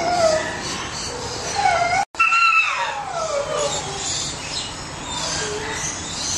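Dogs whining and howling in shelter kennels: high, drawn-out cries that slide down in pitch, one after another.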